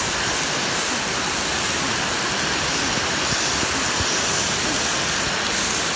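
Steady rain falling, an even hiss with scattered single drops heard among it.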